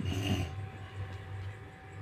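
A sleeping woman snoring: one rough snore in the first half second, then quieter breathing over a low steady hum.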